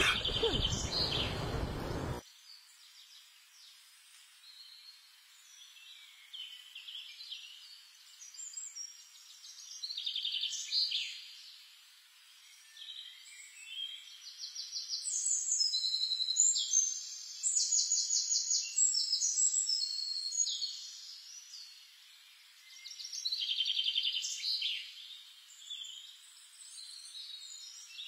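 European robin singing in short, high-pitched phrases of trills and warbles with pauses between them. The first two seconds hold a low, rough noise under chirps that cuts off suddenly.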